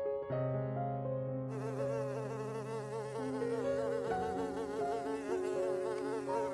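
Bee buzzing, its hum wavering up and down in pitch; it comes in about a second and a half in.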